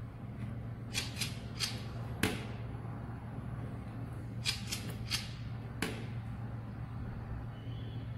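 A smartphone shaken by hand: sharp clicks in two short clusters, a few strikes each, as the phone is shaken to change the LED strip's colour. A steady low hum runs underneath.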